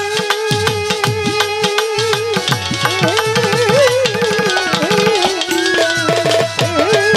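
Folk band playing an instrumental interlude of pala gaan: hand drums with sliding bass strokes, several a second, under a wavering melody line that bends in pitch.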